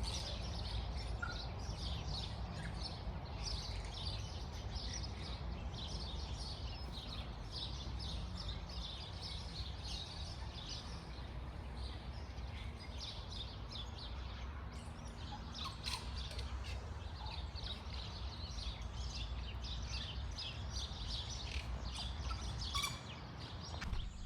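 Tui singing in a tree: a steady stream of quick high chirps and twitters, over a low steady rumble.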